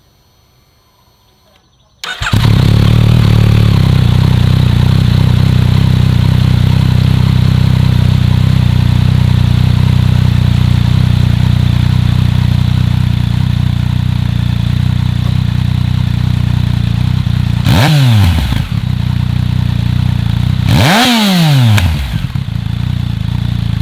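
A 2014 Yamaha FZ-09/MT-09's inline three-cylinder engine, breathing through a LeoVince LV One Evo full exhaust with its dB killer still fitted, starts up about two seconds in on its first start with the new system and idles steadily. Near the end the throttle is blipped twice, each rev rising and falling quickly back to idle.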